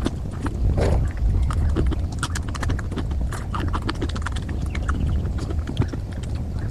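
Close-miked chewing of puri or luchi with potato curry: a dense run of irregular wet mouth clicks and smacks.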